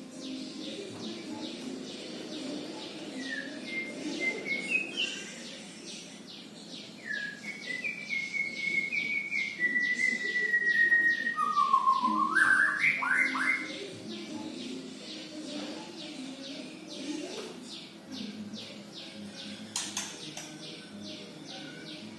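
A white-rumped shama (murai batu) practising its song. It gives several clear whistled phrases; the loudest dips low and then sweeps sharply upward about twelve seconds in. A steady run of short, rapid chirps goes on throughout.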